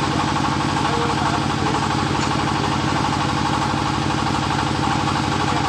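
Portable soil-sampling drilling rig's on-board engine running steadily at a constant speed.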